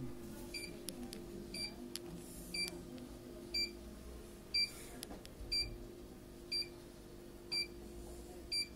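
Laser therapy unit beeping a short, high beep about once a second, the audible signal that the laser is emitting, over a steady low hum.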